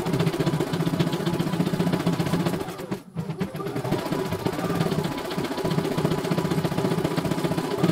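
CNY E900 computerized embroidery machine stitching, its needle running in a rapid, even chatter as the hoop moves. The sound drops out for a moment about three seconds in, then carries on.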